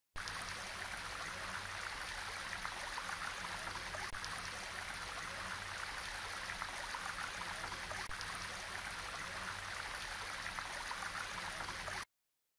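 Steady rush of running stream water, starting and stopping abruptly.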